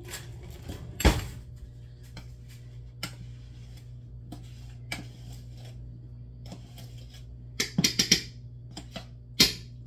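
A metal spoon clinking and tapping against a plastic powder jar and the rim of a large aluminum stock pot as powder is scooped and shaken in. There is one sharp knock about a second in, scattered light ticks, and a quick run of clicks near the end, over a steady low hum.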